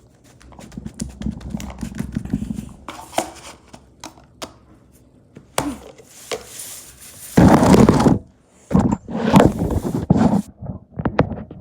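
Hands pressing and folding Play-Doh Slime Super Cloud to trap air bubbles. It makes squishing and soft thuds with scattered small pops and clicks, and there are louder stretches of handling noise past the middle and again near the end.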